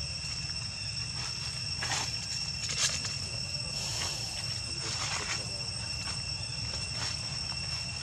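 Steady, high-pitched drone of an insect chorus, with a few brief rustles or taps about two, three, four and five seconds in.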